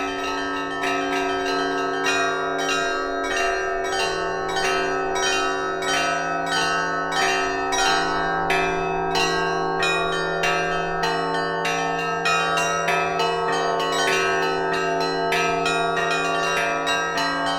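A set of bells rung in the Russian style (zvon). Quick, steady strokes on several bells of different pitch, their tones overlapping and ringing on.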